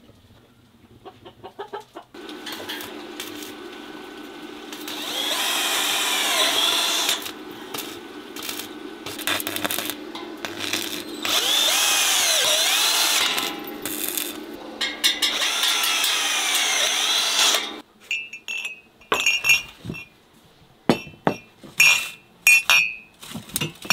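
Cordless drill working on a welded steel tube frame, running in three long, loud runs with a high metallic squeal that rises and falls. Glass mugs clink on a tray near the end.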